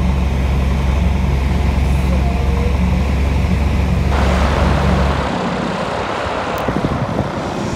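Light aircraft's engine and propeller droning steadily, heard inside the cabin in flight. About five seconds in the drone cuts off suddenly, giving way to an uneven rumbling noise like wind on an outdoor microphone.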